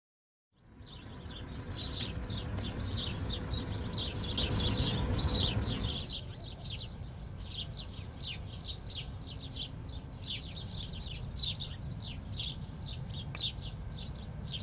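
A flock of small birds chirping rapidly and without pause over a steady low outdoor rumble, starting about half a second in.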